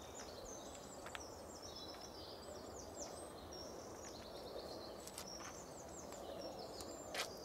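Small songbirds singing in quick repeated chirps and short trills over faint background noise, with a sharp click near the end.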